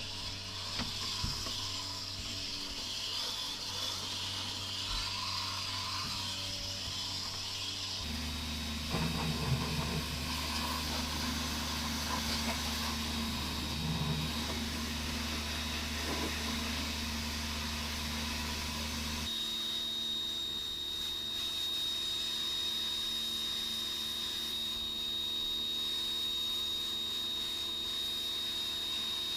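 Parkside PHD110 compact electric pressure washer running, spraying water, with a steady motor hum and the hiss of the spray. The sound changes abruptly about eight and nineteen seconds in, and a steady high whine runs through the last ten seconds.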